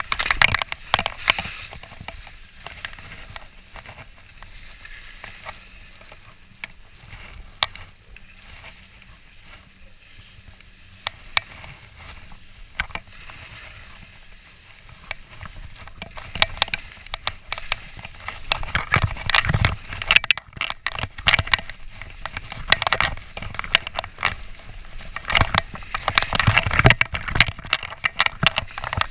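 Alpine skis scraping and hissing over packed snow on a downhill run, with a grainy crackle from the edges. It is quieter through the middle and louder and rougher in the second half as the turns get harder.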